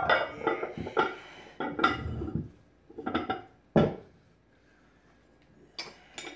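Iron weight plates clanking and scraping against a 2-inch loadable dumbbell handle as they are shifted by hand: a run of ringing metal clanks over the first four seconds, then two short clinks near the end.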